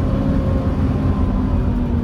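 Volvo B7TL double-decker bus with its Volvo D7C diesel engine running under way, heard from on board as a heavy low rumble, its note easing slightly lower.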